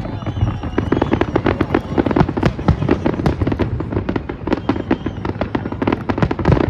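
Fireworks display going off densely: a rapid, unbroken run of bangs and crackles, several a second, with faint whistles in the first second or so.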